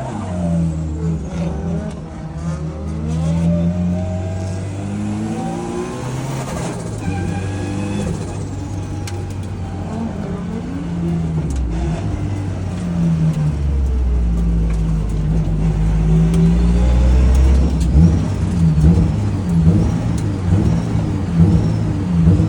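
Turbocharged Nissan Silvia SR20 four-cylinder engine revving up and down again and again under hard driving. The revs turn quick and choppy in the last few seconds.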